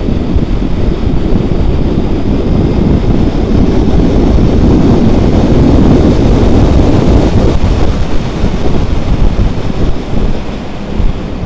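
Wind rushing over the microphone with the road and engine noise of a Honda Hornet 900 motorcycle being ridden briskly; its 900cc Fireblade engine sits under the wind. The rush is loudest in the middle and eases a little near the end.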